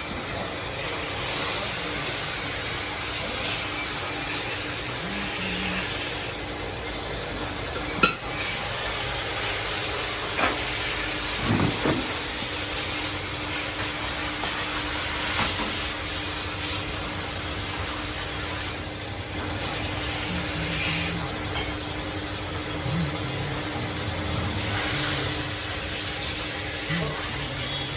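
Workshop noise: a steady high hiss that drops out for a few seconds several times, with a sharp click about eight seconds in, a few knocks a little later, and a steady low hum from about eleven seconds on.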